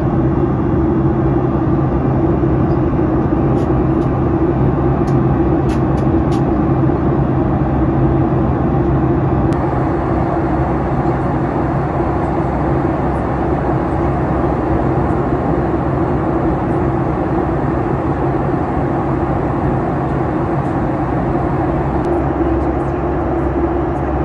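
Steady cabin noise of a Boeing 737 MAX 8 in flight, heard from a window seat beside the wing: the CFM LEAP-1B turbofan's drone and airflow rush, with a low steady hum underneath.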